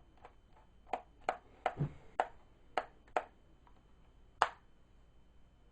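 Small sharp clicks and taps of a small screwdriver and loose screws being handled against a laptop's plastic underside while the memory cover is unscrewed, about eight in all, irregularly spaced, the loudest near the end.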